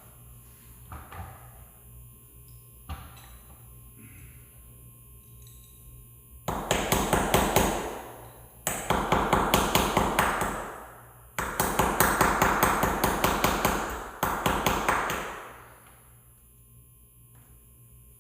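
Hammer tapping a chisel into wood to cut a shallow mortise for a deadbolt: three runs of quick ringing strikes, about four a second, the last and longest ending about two thirds of the way in.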